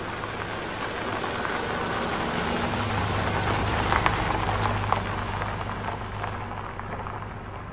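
A steady rain-like hiss with a low hum underneath, building to its loudest about four seconds in, where a few sharp ticks stand out, then easing off.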